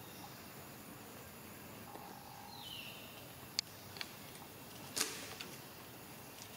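Outdoor forest ambience: a steady hiss with a brief whistle-like tone, a short falling whistle, and a few sharp clicks, the loudest about five seconds in.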